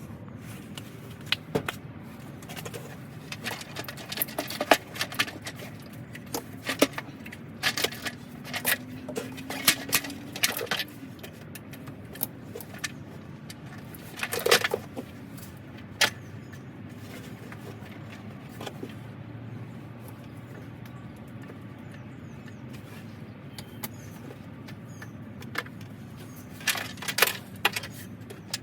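Metal hand tools and engine parts clinking and clanking in irregular sharp knocks during work on a car engine, over a steady low background hum. The knocks come in clusters, the busiest in the first third and another near the end.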